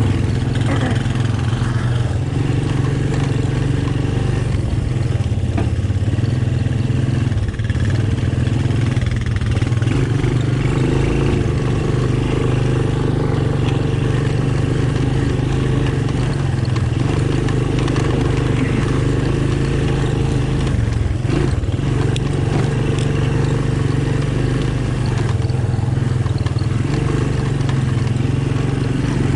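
Honda ATC 200M three-wheeler's single-cylinder four-stroke engine running steadily while being ridden, heard from the rider's seat.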